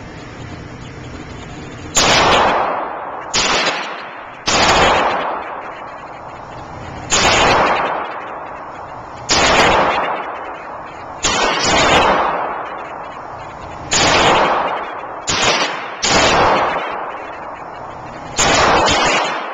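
Semi-automatic pistol fired shot by shot, about eleven shots at an irregular pace one to three seconds apart, a couple in quick pairs. Each shot rings on in the hard-walled indoor range before the next.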